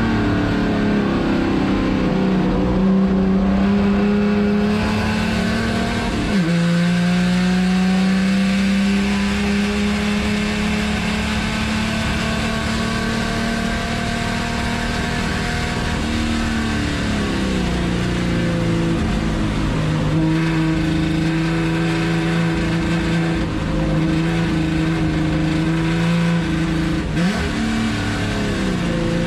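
Chevrolet Opala race car's inline-six engine at racing speed, heard from inside the cabin. Its pitch drops sharply at a gear change about six seconds in, then climbs slowly for around ten seconds and falls away over a few seconds as the car slows. It holds a lower note, with another quick shift near the end.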